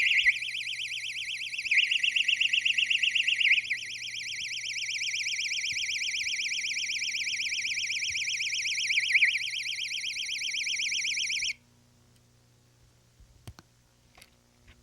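Pocket 100 dB personal anti-attack alarm sounding after its pull lever is pulled: a loud, high electronic siren that warbles rapidly up and down. It runs for about eleven and a half seconds, then cuts off abruptly.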